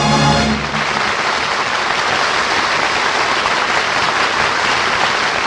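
An orchestra's final held chord ends about half a second in, and an audience breaks into steady applause.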